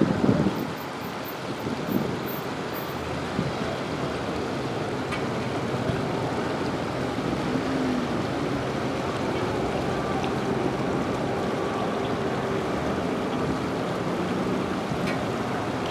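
Steady rushing of fast-flowing floodwater from the swollen river, with a faint low hum underneath. A few brief bumps come in the first two seconds.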